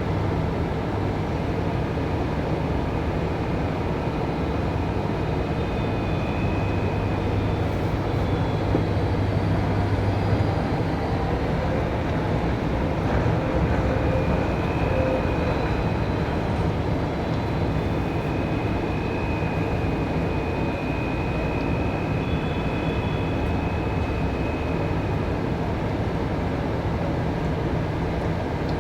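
Heavy dockside machinery running with a steady low drone, as containers are loaded by a port container crane; faint high-pitched whines come and go over it.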